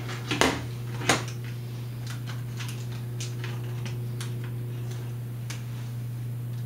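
Small clicks and taps from handling a ThinkPad T60 laptop's plastic parts and connector: two sharper clicks about half a second and a second in, then light scattered ticks, over a steady low hum.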